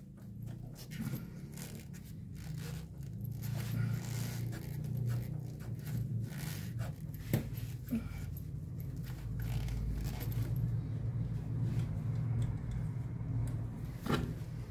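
Scrapes and short clicks as a rubber LPG gas pipe is worked off its fitting on the injector rail by a gloved hand, over a steady low hum.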